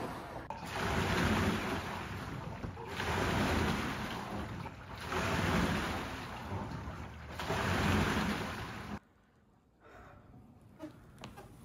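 Wooden water rowing machine in use: the water in its tank surges and sloshes with each stroke, swelling and fading about every two seconds. It cuts off suddenly about nine seconds in, leaving only a few faint clicks.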